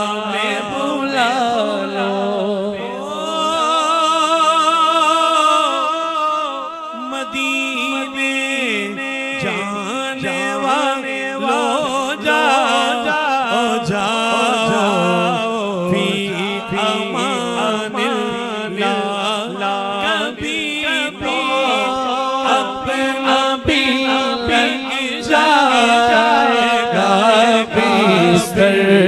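A man singing an Urdu naat solo into a microphone over a sound system, drawing out long wavering held notes and ornamented runs, over a steady low drone.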